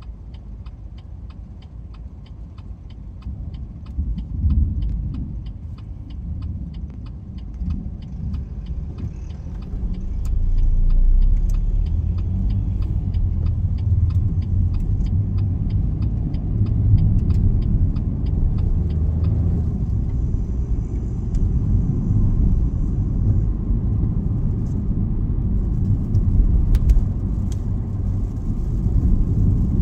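A car's turn-signal indicator ticking evenly, about two to three clicks a second, over the low cabin hum of the car. About ten seconds in, the car pulls away and the engine and tyre rumble grows louder; the ticking stops about two-thirds of the way through.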